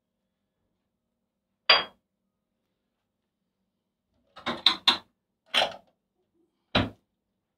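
Kitchen handling sounds: a single sharp, ringing clink about two seconds in, like a tea glass set down on the counter, then a quick cluster of clicks and knocks as a lift-up wall cabinet door is opened, and a duller knock near the end.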